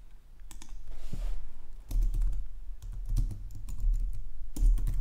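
Typing on a computer keyboard: an irregular run of keystrokes over a low steady hum.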